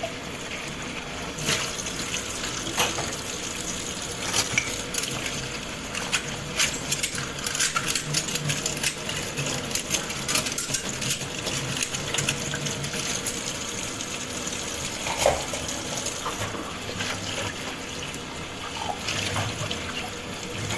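Tap water running into a kitchen sink while dishes are washed, with plates and cutlery clinking many times, most densely through the middle stretch and again near the end.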